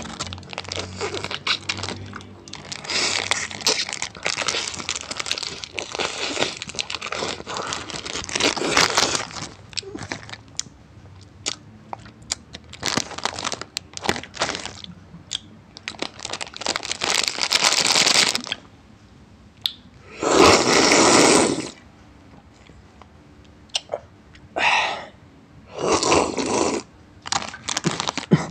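Crinkly snack wrappers crackling and tearing as they are opened close to the microphone, with crunching. The crackle is dense for the first two-thirds, then comes in a few shorter, louder bursts.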